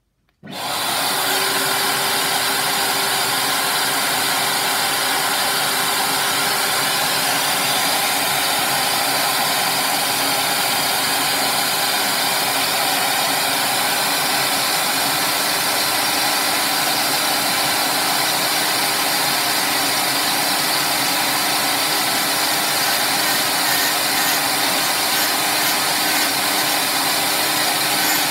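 Electric motors running steadily with a rushing air hiss: a vacuum hose drawing off dust while a Dremel rotary tool spins, switched on abruptly about half a second in and holding an even level.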